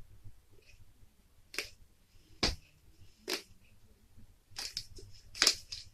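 Plastic and card packaging of a DVD box set being worked open by hand: sharp clicks about a second apart, then a quicker run of crackles near the end.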